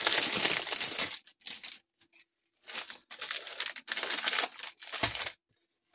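Plastic packaging crinkling as it is handled, in several rustling bursts with short pauses between them.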